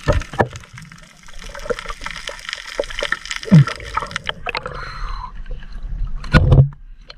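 Water heard through an underwater camera during a night dive: a steady crackle of small clicks and gurgles, with a loud rush of water about six and a half seconds in.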